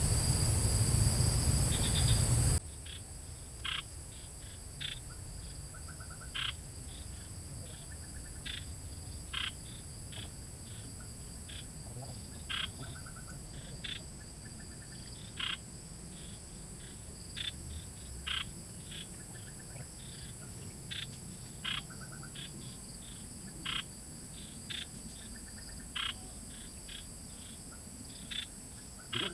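Night chorus of frogs and insects: a steady high insect trill under short, sharp frog calls coming irregularly about once a second. A loud low rumble fills the first two and a half seconds and cuts off abruptly.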